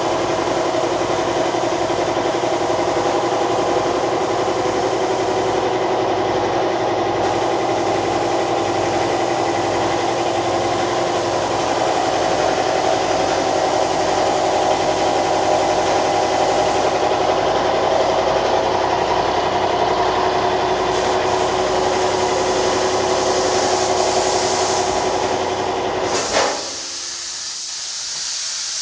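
A motor runs with a steady, unchanging hum. About 26 seconds in it stops with a click, leaving a quieter steady hiss.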